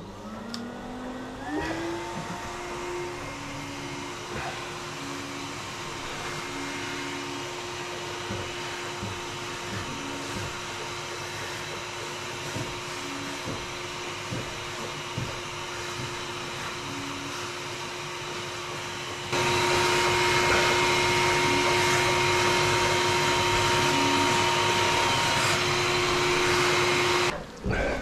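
Canister vacuum cleaner used as a bee vac, switched on and spinning up over about two seconds to a steady whining run while its hose sucks bees from a roof cavity. Its suction noise grows markedly louder about two-thirds of the way through, and the sound cuts off abruptly near the end.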